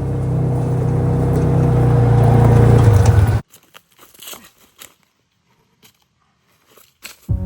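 Car engine and road noise, a steady low drone that cuts off suddenly about three and a half seconds in. Then near quiet with a few faint crunches, and music starts just before the end.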